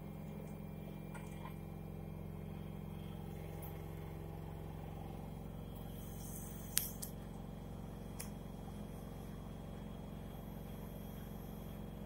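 LG FV309N front-loading washing machine with an inverter direct-drive motor running mid-cycle: a steady low hum as the drum turns the wet laundry. A single sharp click comes about seven seconds in, with a couple of fainter ones after it.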